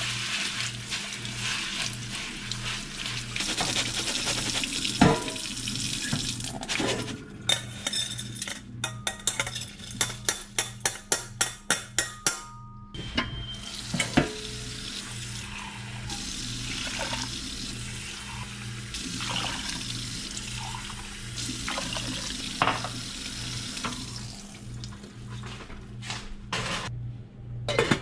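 Kitchen tap running water through a fine-mesh strainer of grain, then a quick run of about a dozen sharp knocks. After that the tap runs again into a stainless saucepan, with a few clinks of metal.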